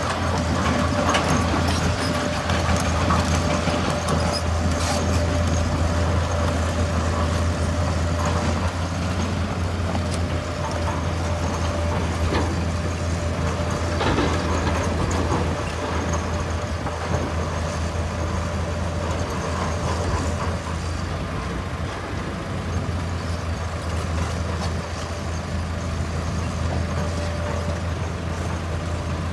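Diesel engine of a working excavator running steadily with a constant low drone and a faint steady whine, with scattered short metallic knocks and clanks.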